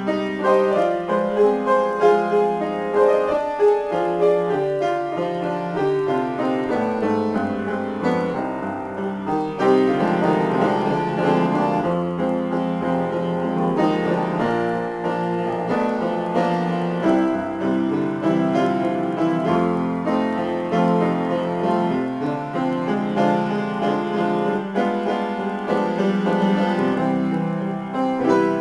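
Solo acoustic piano improvisation, a continuous flow of notes and chords played with both hands.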